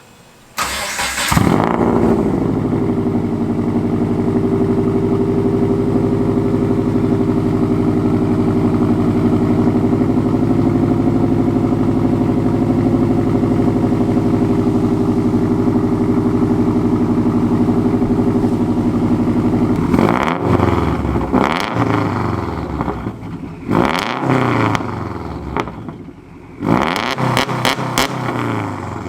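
Subaru WRX turbocharged flat-four, running through a freshly fitted Tomei titanium exhaust, starts up about half a second in and idles steadily. From about twenty seconds in it is revved in repeated blips, pitch rising and falling.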